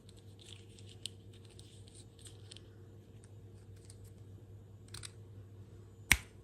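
Light, crisp clicking and crinkling in quick irregular runs, then a single sharp tap near the end.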